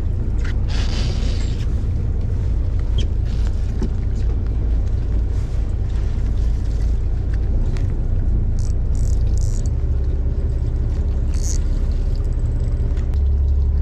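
Fishing boat's engine running with a low, steady rumble that gets louder near the end, with a few faint light ticks partway through.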